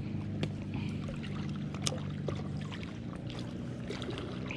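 Small lake waves lapping and trickling against the rocks at the water's edge, with a few light ticks and a steady low hum underneath.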